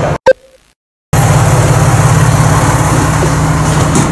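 A brief sharp click and about a second of silence, then the steady low drone of a diesel railcar's engine heard inside the passenger car.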